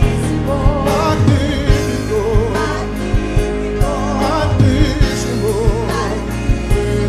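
Christian worship song: a solo singer's wavering voice over a band with bass and a steady drum beat.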